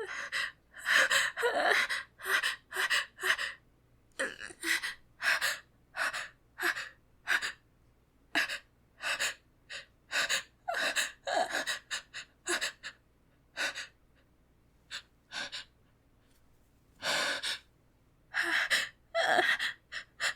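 A woman's short, sharp gasping breaths as a sneeze builds up, coming one after another about twice a second, with a brief lull about two-thirds of the way through. The sneeze has not yet come.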